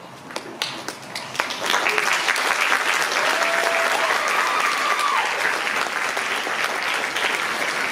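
Theatre audience applauding at the end of a scene: scattered claps at first, swelling after about a second and a half into steady, full applause.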